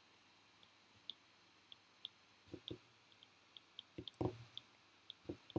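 Faint, irregular ticking of a stylus tip on a tablet screen during handwriting, a few ticks a second, with a few soft knocks in the second half.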